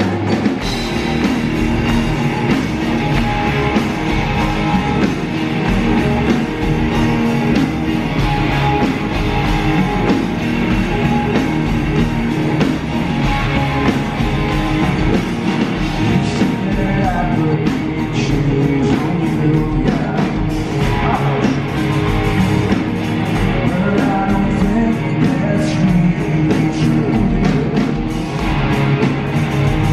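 Live rock band playing: electric guitars, bass, keyboards and drums with a lead vocal, recorded from among the audience.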